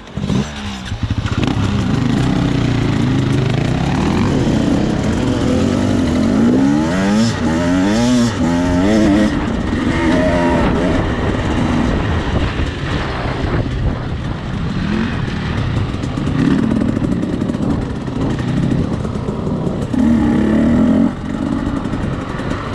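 Enduro dirt bike engine pulling away and riding a dirt trail, its pitch rising and falling again and again as the throttle is worked, most sharply about six to nine seconds in.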